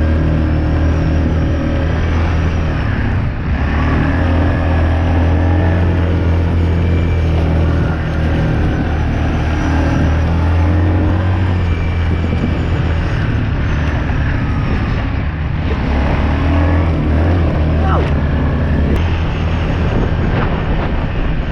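Small off-road vehicle engine running hard at speed, a steady loud drone that dips briefly a few times.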